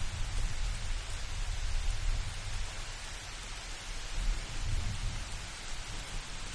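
Steady hiss of light rain, with a low rumble of thunder underneath that swells about four seconds in.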